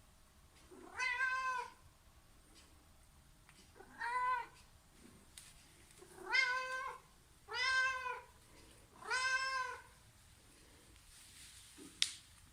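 A domestic cat meowing five times, each meow under a second long, rising and then falling in pitch. A single sharp click follows near the end.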